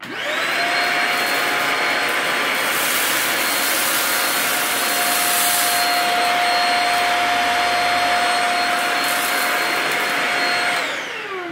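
Shark Rocket DuoClean stick vacuum switched on, its motor spinning up quickly and running steadily with a whine over the rush of air, then switched off near the end and winding down with a falling whine.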